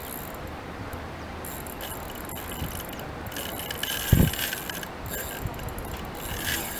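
Osprey RTA7000 spinning reel clicking and whirring under load from a hooked catfish, in spells of a second or so. A low thump comes about four seconds in.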